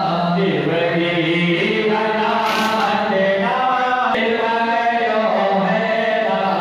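Hindu devotional chanting, voices singing a hymn in long held notes, with a short click about four seconds in.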